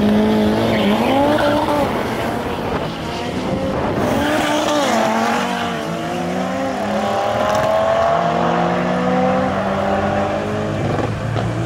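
Two drag cars launching off the line and accelerating hard, one of them the Audi RS3's turbocharged five-cylinder. Engine notes rise in pitch, drop back at each gear change, then climb steadily as the cars pull away down the strip.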